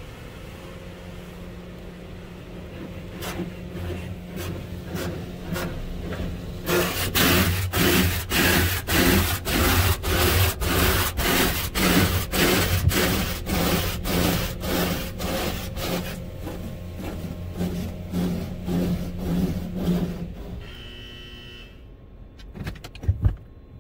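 Autec AES-425 car wash spraying water onto the car, heard from inside the car: the spray drums on the body and glass in a regular pulse about twice a second, loudest in the middle, then fades out over a steady machine hum. Near the end there is a short electronic tone of about a second, then a couple of sharp knocks.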